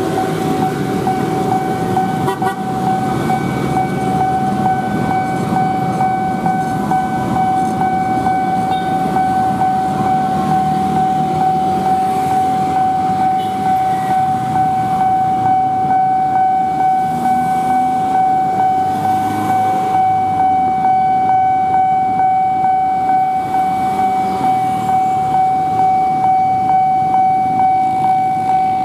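Railway level-crossing warning alarm sounding one steady high tone while the crossing's flashers are lit and the barriers are down, over the noise of motorcycle and car traffic.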